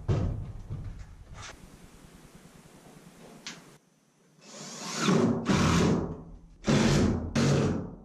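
Four short bursts of clattering, rustling noise in the second half, each about half a second long, from handling work at a metal electrical sub-panel.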